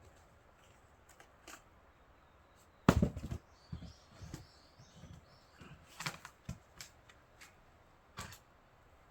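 A splitting axe strikes a pine round with one sharp, loud blow about three seconds in, followed by several lighter wooden knocks and clatters of split firewood.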